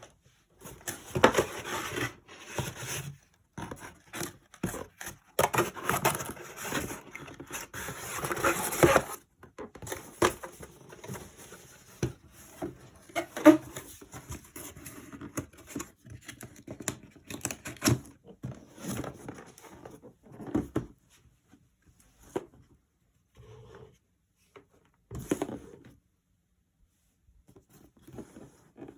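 Objects being handled at close range: irregular rubbing and scraping with a few sharp knocks, busiest in the first nine seconds and sparser toward the end.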